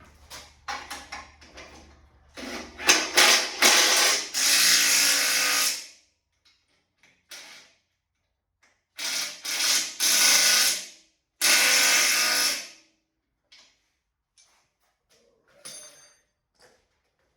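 A small power tool's motor runs in three bursts of one to three seconds each, with small clicks and knocks of handling in between.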